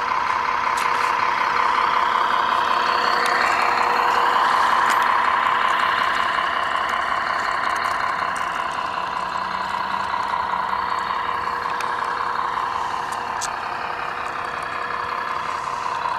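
Radio-controlled Peterbilt logging truck model driving, its running sound a steady whine that rises in pitch a few seconds in and wavers as it goes.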